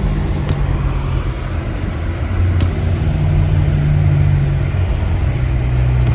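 A Subaru driving slowly through deep snow, heard from inside the car: a steady low engine and road drone that rises slightly in pitch partway through and settles again near the end, with a couple of faint ticks.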